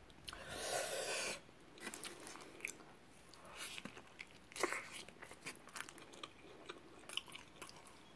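Close-up chewing and biting into a big juicy burrito: small wet mouth clicks and smacks at an irregular pace. A second-long burst of noise comes near the start, and a louder bite-like burst a little past the middle.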